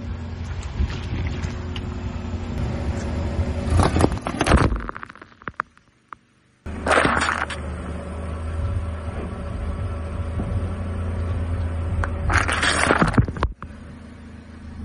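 Car engine running at low speed as its tyres roll over things, with loud crunching, bursting noises about 4 s, 7 s and 12.5 s in. The sound cuts out briefly just after 5 s.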